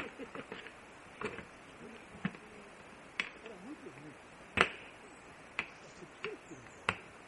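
A series of sharp clicks and snaps at irregular intervals, about eight in all, the loudest about four and a half seconds in.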